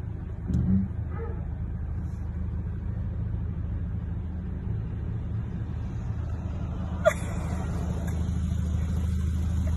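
Car engine idling, a steady low hum heard from inside the cabin, with a single sharp click about seven seconds in.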